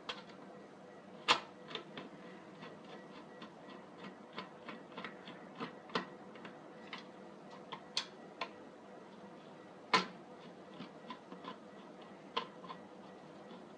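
Irregular light clicks and taps of a screwdriver and plastic parts as a steam iron's plastic housing is put back together and screwed shut. The louder knocks come about a second in and again around the middle, near eight seconds and near ten seconds.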